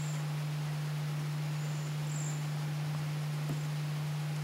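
A steady low hum with a few faint, short, high-pitched chirps over it.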